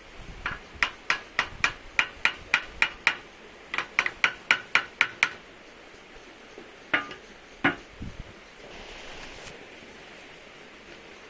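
Light metallic tapping: steel 5 mm balls being driven one by one into the joint of a Toyota RAV4 steering intermediate shaft with a flat-blade screwdriver, replacing worn 4.7 mm balls to cure the knock in the steering. The taps come in two quick runs of about eight, at three to four a second, followed by two louder single knocks near the middle.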